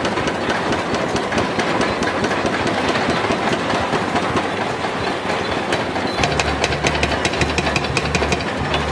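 Several excavator-mounted hydraulic breakers hammering concrete in rapid, repeated blows, over the steady running of the excavators' engines.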